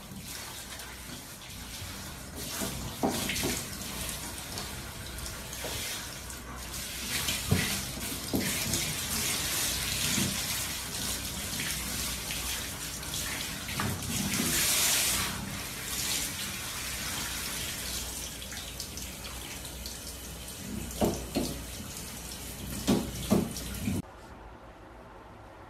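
A handheld shower head sprays water steadily onto a dog's coat in a shower stall, with a few short knocks and splashes. The spray stops abruptly near the end.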